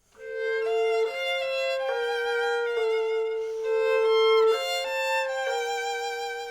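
Solo violin playing a slow melody of held notes, fading in at the start.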